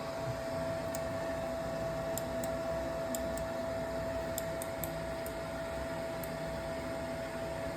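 Automatic soldering robot running with a steady, even whine, with a few faint ticks scattered through it.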